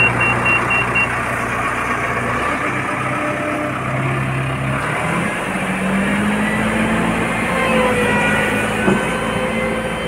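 Diesel engine of a HAMM 311 single-drum road roller running steadily, with a rapid high beeping alarm in the first second. About five seconds in, the engine note shifts to a higher steady pitch.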